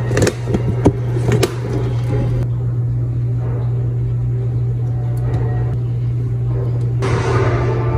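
A steady low hum, with several sharp clicks and knocks in the first second and a half. About seven seconds in, a few steady held tones come in over it.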